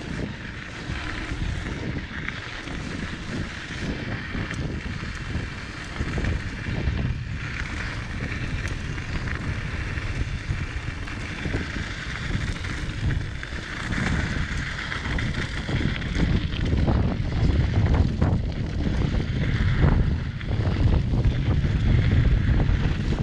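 Wind buffeting the microphone as a Diamondback Mission 2 mountain bike rolls down a dirt trail: a steady rumble from the tyres on the ground with many small knocks and rattles from the bike over bumps, growing louder about two-thirds of the way through.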